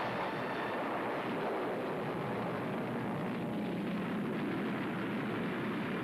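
Film soundtrack of a gas station blowing up: a steady, continuous roar of explosions and fire, with no single sharp blast standing out.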